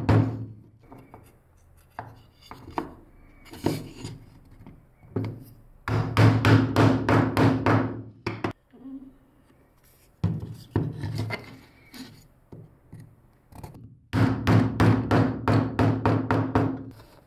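Wooden mallet tapping rapidly on plywood parts and wooden dowels to seat the joints, in quick runs of taps about six to eight a second. The longest runs come about six seconds in and over the last three seconds, with scattered single wooden knocks between.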